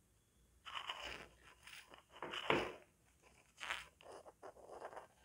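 Handling noise: irregular rubbing and scraping as multimeter test leads and an AA battery are moved about and set down on a wooden desk, loudest about two and a half seconds in.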